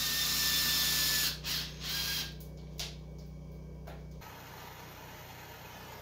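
A loud hiss lasting about a second, then a shorter one, like a spray or a blast of air, over a low steady hum that stops about four seconds in.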